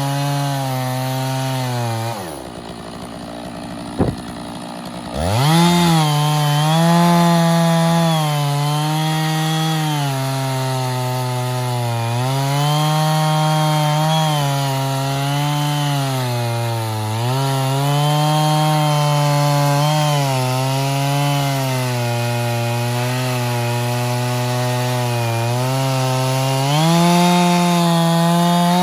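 Stihl 660 Magnum two-stroke chainsaw on an Alaskan chainsaw mill running at full throttle, ripping along a log, its pitch dipping and recovering as the load changes. About two seconds in it drops to idle for a few seconds, with a single sharp click, then revs back up and carries on cutting.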